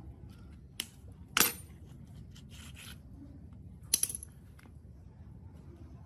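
Small metal parts or hand tools clinking onto a concrete floor during fork disassembly. There is a light click, then a sharp, ringing clink about a second and a half in, and a second ringing clink with a short rattle about four seconds in.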